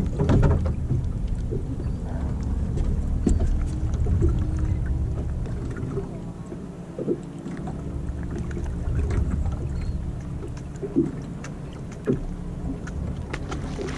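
Wind and water around a small fishing boat at sea: a steady low rush with scattered knocks, the sharpest near the end.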